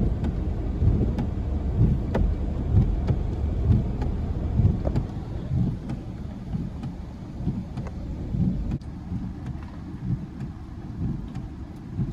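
Road and engine rumble heard from inside a moving car.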